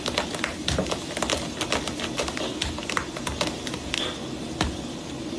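Irregular light clicks and taps, several a second, over a steady background hum.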